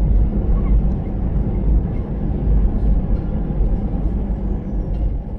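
Steady low rumble inside the cabin of an Airbus A321neo: engine and airframe noise heard from a window seat, easing slightly near the end.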